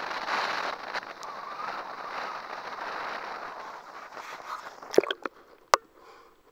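Steady rushing of shallow water over a sand flat right at the microphone, then a few sharp knocks about five seconds in as the camera is handled and dipped underwater, after which the sound turns muffled and quiet.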